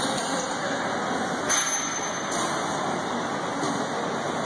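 Automated welding machine running with a steady mechanical noise, with a brief hiss about a second and a half in.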